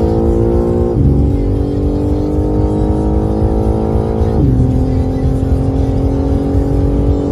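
Car engine accelerating hard from inside the cabin, its pitch climbing through the gears with two upshifts, about a second in and again near the middle.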